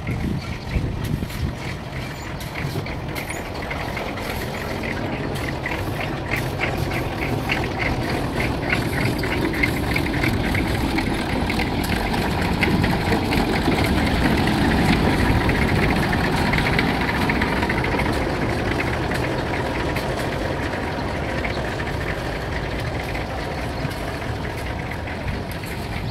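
Heavy diesel construction machinery running steadily, a deep engine rumble that grows louder toward the middle and then eases off.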